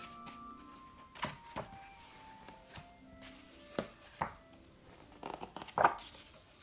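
Pages of a large hardcover art book turned by hand, several short paper swishes, over soft background music of slow held notes.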